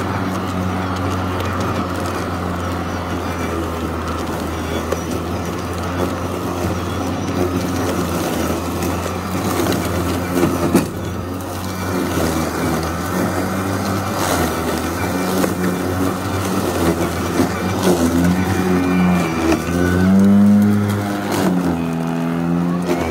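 EGO 56-volt cordless lawnmower's electric motor and blade running with a steady whirring hum while cutting through tall weeds and brush. A single knock about eleven seconds in, and near the end the pitch sags and climbs back several times as the blade is loaded by thick growth.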